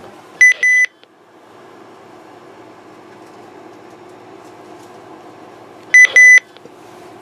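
Two short double electronic beeps on a high, steady tone, about five and a half seconds apart, over a faint steady hum.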